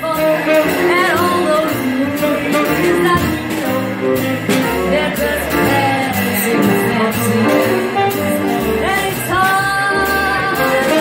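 A woman singing a jazz song into a microphone, backed by a live jazz combo of piano, upright bass and drums.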